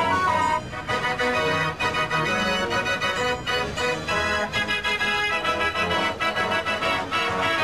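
Organ music: a busy tune with many notes.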